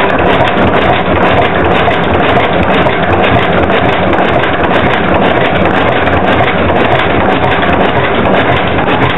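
Langen & Wolf stationary mill engine running steadily, a loud continuous mechanical clatter.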